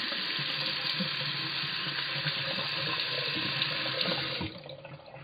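Bathroom tap running, water splashing into the washbasin and over a metal shisha smoke column held beneath it to rinse it out. The tap is shut off about four and a half seconds in, leaving a few faint drips.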